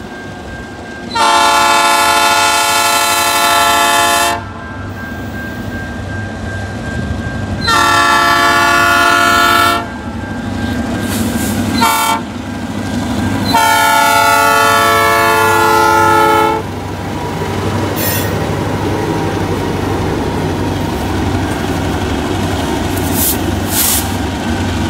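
Diesel freight locomotive's multi-chime air horn sounding the long-long-short-long grade-crossing signal as the train approaches. The locomotives then pass with a steady low rumble, followed by the freight cars rolling by on the rails.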